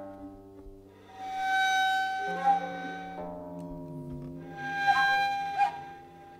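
Improvised ensemble music: an umtshingo, a southern African end-blown overtone flute, plays two long, breathy notes over soft violin and guitar tones. Between the two notes, a lower line steps downward.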